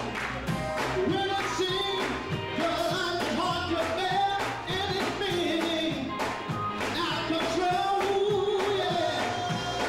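Male vocal group singing a gospel song in harmony through microphones, backed by a band with guitar and drums keeping a steady beat.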